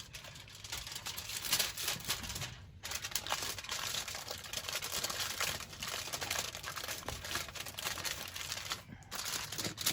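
Aluminium foil crinkling and crackling as it is handled and folded, with a couple of brief pauses.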